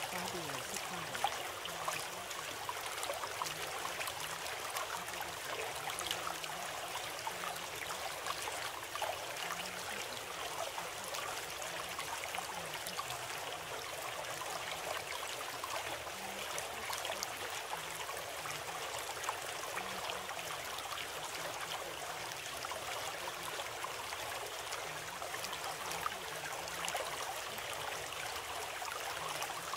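Running water of a stream, steady and even throughout.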